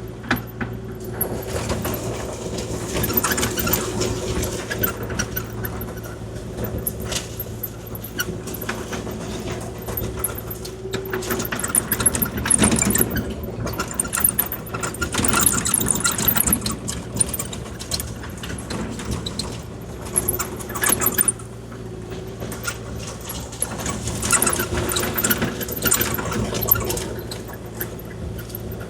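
Kubota KX040-4 mini excavator's diesel engine running steadily under load while the bucket scrapes and spreads gravel, with several louder spells of grating and rattling stone.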